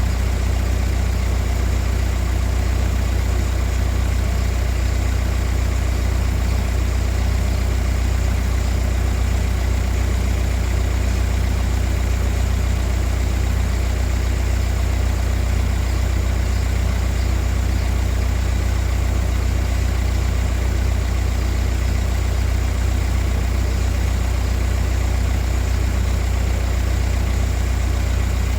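A steady, loud low machine drone with a faint regular pulse, unchanging throughout.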